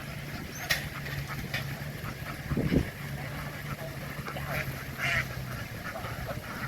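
A flock of farm ducks quacking, many short overlapping calls, over the steady low hum of an idling boat engine that stops about five and a half seconds in.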